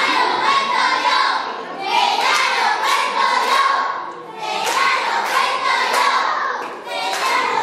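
A group of children singing together in phrases of about two seconds, each followed by a short break.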